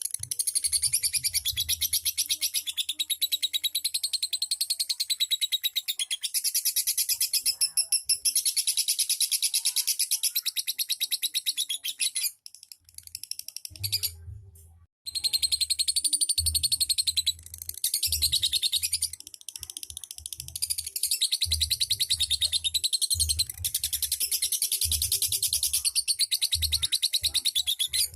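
Lovebird singing in long, very fast chattering trills (the 'ngekek' and 'ngetik' song prized by Indonesian bird keepers), breaking off for a couple of seconds about halfway through.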